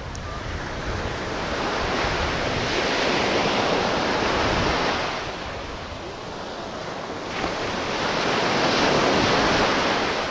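Ocean surf washing on a sandy beach: two waves swell up and break, the first peaking a few seconds in and fading, the second rising about seven seconds in and easing near the end. Wind buffets the microphone underneath.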